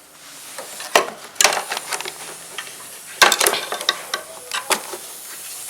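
Irregular clicks, knocks and scraping rustles of the Eureka Forbes Euroclean X-Force vacuum cleaner's plastic parts being handled around its dust bag, with the loudest cluster of clatter a little past the middle.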